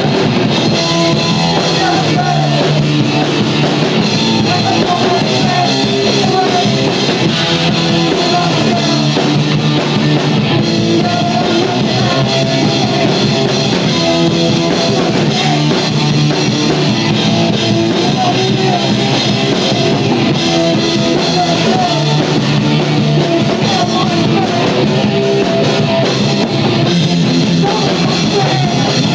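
A rock band playing live with electric guitar and drum kit, loud and continuous.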